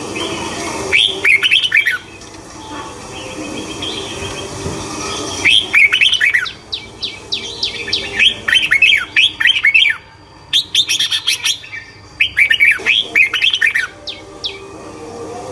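A small songbird singing in repeated phrases of rapid, high chirps, about five phrases with short pauses between them.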